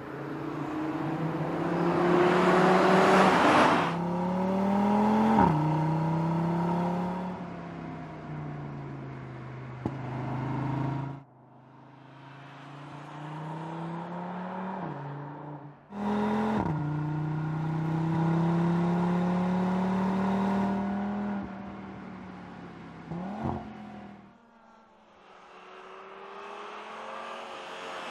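Audi RS 3's 2.5-litre turbocharged five-cylinder engine accelerating hard, its pitch climbing steadily and dropping sharply at each upshift, three times. Passes of the car add a loud rush of noise near the start and again at the end.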